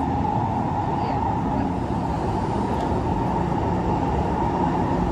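Cabin noise of a Kawasaki C151 metro train running: a steady rumble of wheels and running gear on the rails with a constant higher hum just under it, no change in pace.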